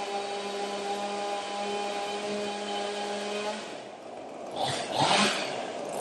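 Chainsaw running steadily at high revs, easing off about four seconds in, then revved up twice near the end.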